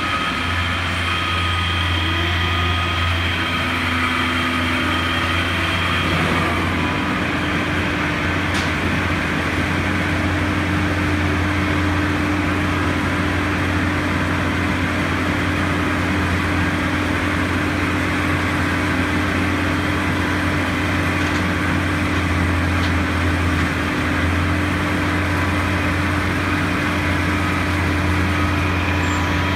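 Truck-mounted crane's diesel engine running steadily under load as it lowers a cut section of trunk. Its tone shifts about six seconds in.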